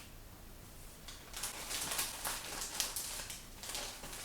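Paper booklets and catalogues rustling as they are handled and sorted, a run of quick crinkles and shuffles.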